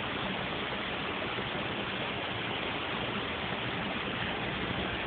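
Steady rushing of running water: an even hiss at a constant level, with no distinct knocks or changes.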